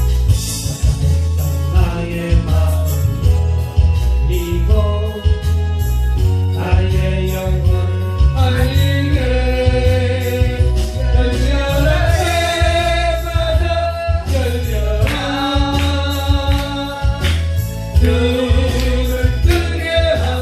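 Gospel song: a voice singing a melody over instrumental accompaniment with a strong bass line.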